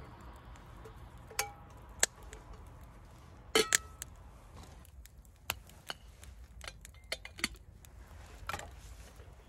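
Metal clinks and knocks as a Trangia kettle and its lid and handle are handled, a handful of separate taps with the loudest double knock about three and a half seconds in. Faint campfire crackling runs underneath.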